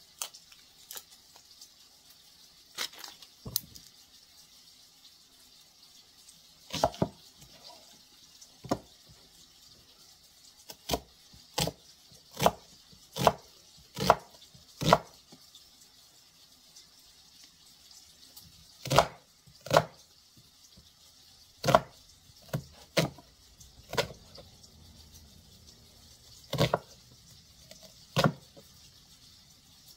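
Chef's knife cutting an onion on a cutting board: sharp, irregular knocks of the blade striking the board, about twenty in all, closest together in a quick run around the middle.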